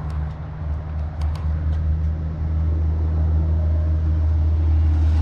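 A motor vehicle's engine running steadily with a deep low hum that grows slightly louder partway through. A few faint sharp clicks in the first second and a half.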